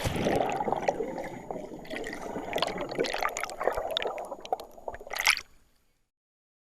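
Water sloshing and gurgling with many small clicks and splashes. It fades out about five and a half seconds in.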